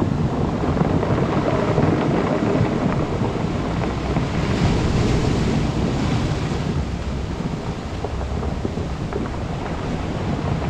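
Surf washing over a cobble beach, the rounded stones rolling and clattering against each other with a crackling sound under the wash of the waves. Wind buffets the microphone.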